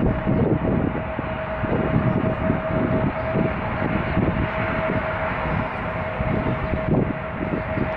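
Jet airliner engines running with a steady whine over a broad rush, and strong wind buffeting the microphone in irregular low gusts.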